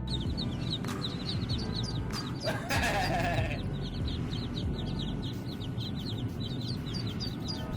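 Birds chirping, a few short high chirps a second, over a low rumble, with one louder, harsher call lasting about a second near the middle.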